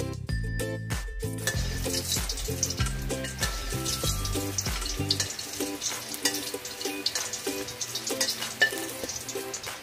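Hot cooking oil and fried julienned ginger poured from a wok onto steamed fish in soy sauce, sizzling and crackling from about a second and a half in. Background music plays along, its bass dropping out about halfway.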